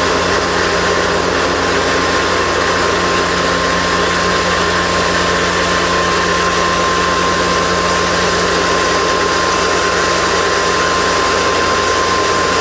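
Mini combine rice mill running steadily under load, its 3 hp electric motor driving the grinder as it mills grain into powder: an even machine noise with a constant high tone.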